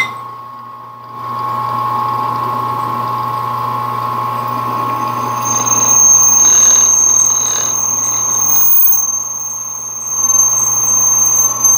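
Burke No. 22 drill press running, its rebuilt electric motor and belt drive giving a steady hum. About halfway through, a high steady whine joins as a 3/16 stubby drill bit cuts through 1/8-inch aluminum angle.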